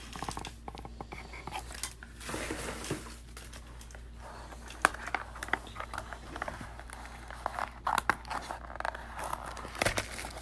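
Plastic packaging crinkling and tearing, with trading cards being handled and irregular sharp clicks and snaps.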